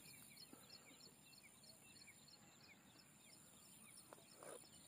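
Near silence outdoors with faint, high chirps from a small creature repeating about three times a second.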